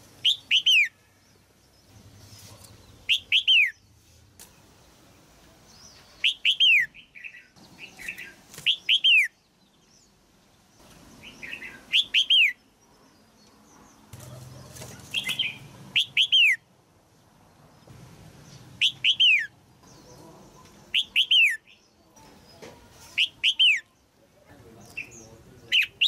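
Red-whiskered bulbul calling over and over: short, loud phrases of two or three quick high notes that slide downward, repeated about every two to three seconds.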